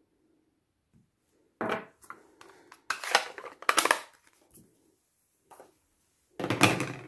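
Hard plastic stamping supplies, a clear acrylic stamp block and an ink pad case, being handled and set down on a craft mat: clattering knocks and scrapes in three bursts, a short one under two seconds in, a longer busy one around three to four seconds, and the loudest near the end.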